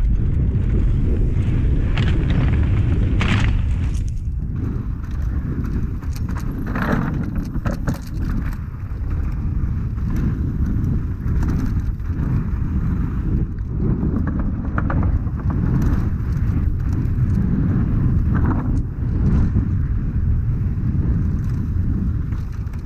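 Downhill mountain bike ridden fast over dirt trail: a steady low rumble of wind on the action camera's microphone and tyres rolling, broken by short rattles and scrapes of the bike over rough ground.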